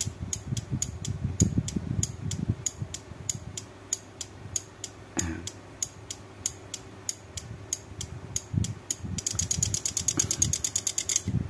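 12 V 30 A automotive relay (relay kodok) clicking on and off about three times a second as its driver module switches it, then breaking into a fast buzzing chatter near the end. The speaker says it should have a diode fitted so it doesn't behave like this.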